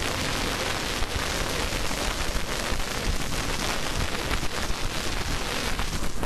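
Steady rush of wind and riding noise on the microphone of a camera carried on a dirt bike moving fast along a dusty dirt trail.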